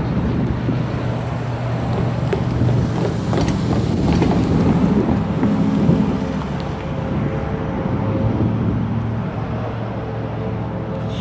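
Diesel freight locomotive approaching slowly, its engine running with a steady low hum, mixed with wind buffeting the microphone.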